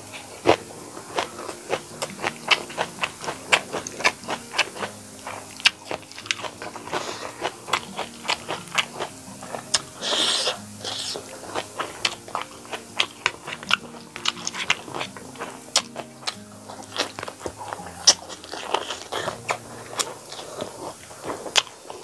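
Close-miked eating sounds: rapid wet chewing clicks and smacks while chewing chicken curry and rice, with hand-mixing of rice and curry on the plate, over soft background music. A short rushing sound comes about ten seconds in.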